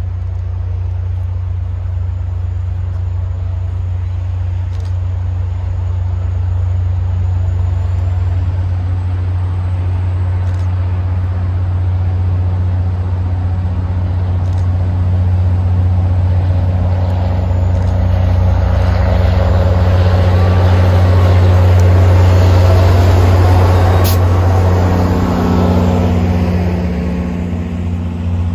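MBTA commuter rail diesel locomotive approaching with a steady low engine drone, growing louder as it nears and passes. Near the end the coaches' wheels run by on the rails.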